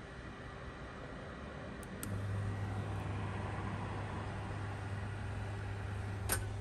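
A 2000 W single-plate induction hob running under a pan of water that is starting to form small bubbles. Its cooling fan hisses steadily. A low hum cuts out at the start and comes back with a click about two seconds in, as the hob pulses its power in and out at a low setting. Another click comes near the end.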